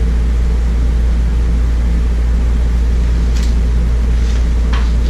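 Steady, loud low hum of a running machine, with a few faint paper rustles near the end as a picture book is handled.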